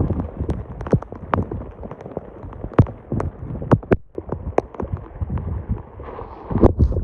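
Irregular sharp taps and knocks, several a second at no steady rhythm, over wind rumbling on the microphone, from a tent being pitched in wind and heavy rain.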